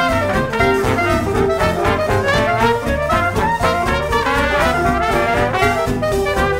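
Instrumental background music with a steady beat and a moving melody line.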